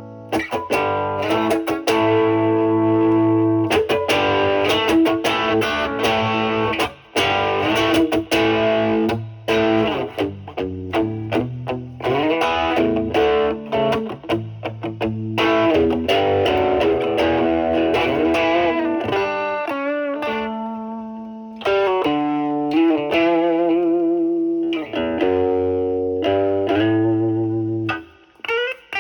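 Electric guitar, a Stratocaster through an MXR Duke of Tone overdrive pedal and a Marshall Valvestate amp's drive channel, playing a bluesy improvisation: ringing overdriven chords, then single-note lead lines with vibrato from about two-thirds of the way in. The drive is cleaned up by rolling back the guitar, giving a mild crunch rather than full distortion.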